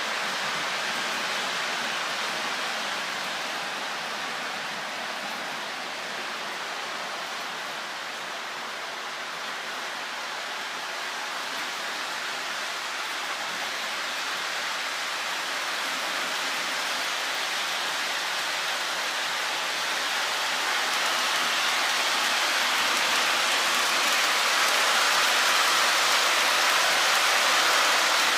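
Lionel Hogwarts Express O-gauge train rolling on three-rail track, a steady rushing hiss of wheels on the rails that grows louder over the last few seconds as the coaches pass close.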